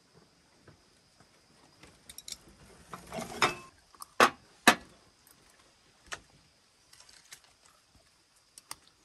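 Chopsticks and bowls clinking while people eat: a short scraping rustle about three seconds in, then two sharp clinks close together, and a few fainter clicks later.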